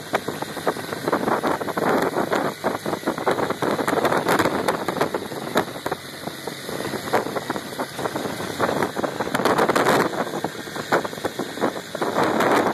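Small boat's outboard motor running steadily, mixed with water rushing past the hull.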